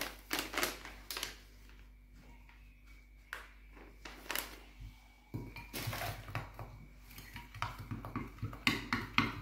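Metal spoon clinking and scraping against a glass bowl while powdered sugar is stirred into warm milk for an icing glaze. A few sharp clinks at first, a quieter stretch, then from about halfway in a steady run of quick clinks and scraping as the stirring picks up.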